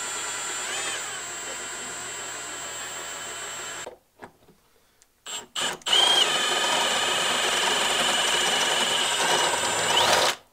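Cordless drill boring a hole through a welded metal bracket clamped in a bench vise. The motor and bit run steadily for about four seconds and stop. After a couple of short trigger blips, a louder, higher-pitched run follows for the last four seconds.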